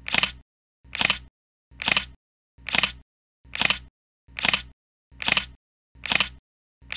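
Camera shutter sound effect, a quick double snap, repeated evenly about once a second, about eight times, with dead silence between each.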